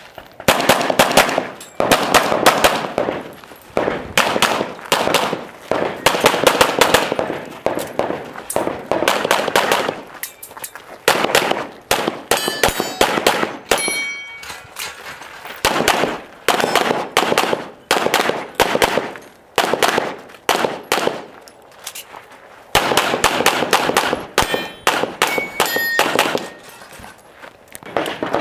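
Long strings of rapid semi-automatic pistol fire from a competition race gun, broken by a few short pauses. Steel targets clang and ring when hit.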